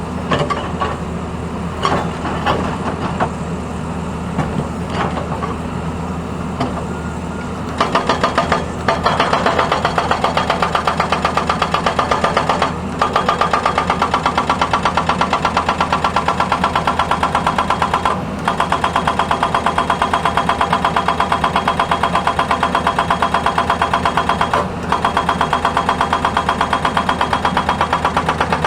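Tata Hitachi excavator running, with a few scattered knocks. About eight seconds in, its hydraulic breaker starts hammering road surface in rapid, even blows, stopping briefly three times.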